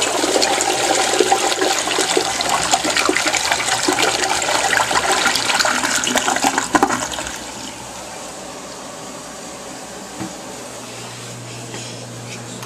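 Toilet flushing: a sudden loud rush of water that lasts about seven seconds, then dies down to a quieter steady hiss of water.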